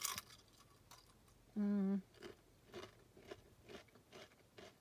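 A person eating a spoonful of cheese dip: a short hummed 'mmm' about one and a half seconds in, then soft, regular chewing sounds, about three or four a second.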